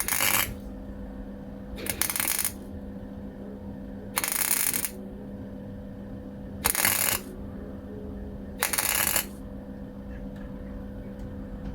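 MIG welder laying short tack welds on thin car-body steel: five separate bursts of crackling, each about half a second long and about two seconds apart, over a steady electrical hum.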